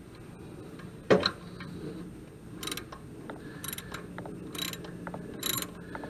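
Socket ratchet wrench being swung back and forth to snug down the distributor hold-down nut. It gives a sharp knock about a second in, then short rattles of pawl clicks about once a second from halfway through.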